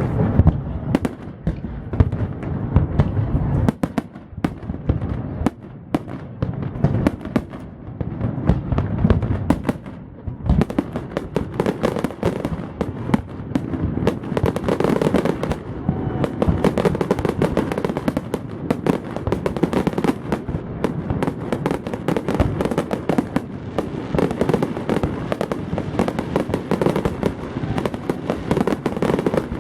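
Fireworks finale: aerial shells bursting in a rapid, overlapping barrage of bangs and crackles. It grows denser and more continuous about a third of the way in.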